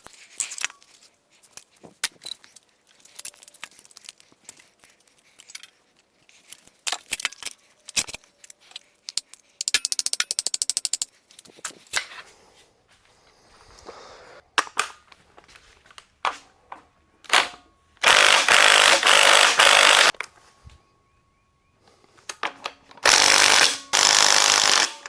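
Tools working on an engine: scattered clicks and metallic knocks, a short fast run of ratchet clicking about ten seconds in, then two loud two-second bursts of rapid hammering typical of an impact wrench spinning off bolts.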